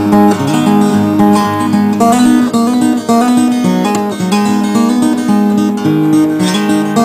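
Acoustic guitar instrumental, picked and strummed, with quick-changing notes over a steady bass line.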